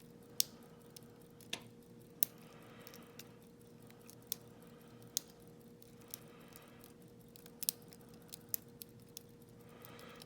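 Lock pick and tension tool working the pin stack inside a Yale Y210C/51 lock: small metallic clicks and ticks at irregular intervals, a few sharper clicks standing out, as the pins are probed and set with the core held in a false set. A faint steady hum runs underneath.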